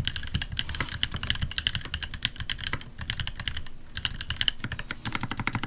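Fast continuous typing on a custom TX87SE mechanical keyboard with lubed Cream linear switches in a brass plate and GMK keycaps: dense rapid keystroke clacks, with short pauses twice near the end.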